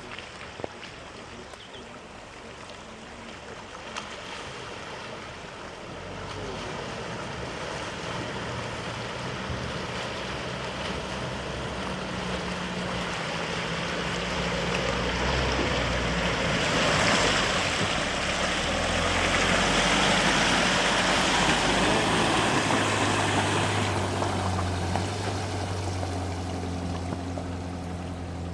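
Toyota Prado four-wheel drive fording a river. The engine comes in low and steady about six seconds in over the running water. Water rushes and splashes around the vehicle, loudest a little past halfway.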